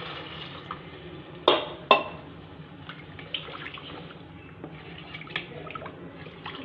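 Water poured into a pressure cooker of fried dal, the pour tailing off early, then the watery dal stirred and sloshing with small scattered clicks. Two sharp knocks about one and a half and two seconds in are the loudest sounds.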